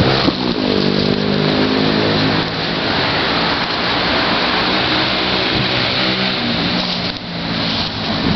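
An engine running at a steady pitch over a constant rushing noise. The engine fades out about seven seconds in.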